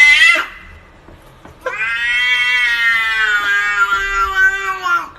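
A cat meowing: a rising meow that cuts off in the first half second, then after a short pause one long, drawn-out yowl of about three seconds, its pitch sinking slightly toward the end.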